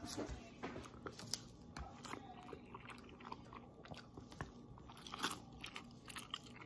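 A person eating pesto pasta straight from the plate with the mouth alone, no hands: faint chewing and wet mouth sounds, with many small scattered clicks and smacks.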